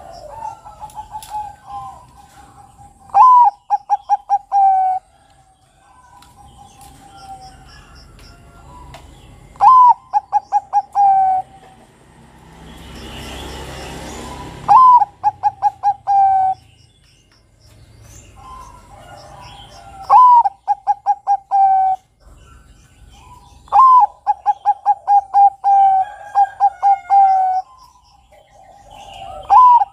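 Zebra dove (Bangkok-type perkutut) singing its cooing song: each phrase is a sharp rising note followed by a quick run of five to eight rolled coos. It is repeated six times, about every five seconds. A brief rush of noise comes about midway, under faint chirps of small birds.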